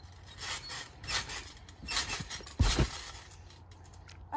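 Someone bouncing on a trampoline: a few short rustling, jingling bounces of the mat and its springs, then a heavy low thump about two and a half seconds in as a body lands on the mat.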